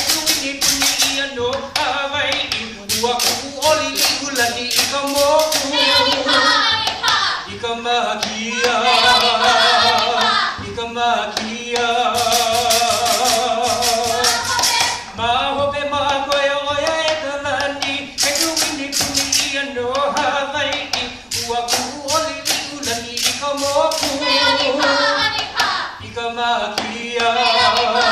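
Chanted singing for a hula, accompanied by an ipu gourd drum and by sharp clicks of kāla'au dance sticks struck together, which come in quick runs several times.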